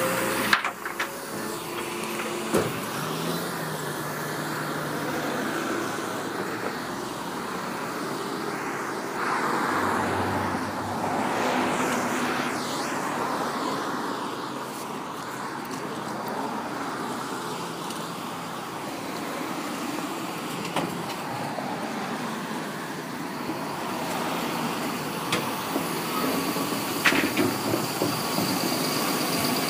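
Refuse lorry running amid street traffic noise during bin collection, with a few sharp knocks near the start and again near the end.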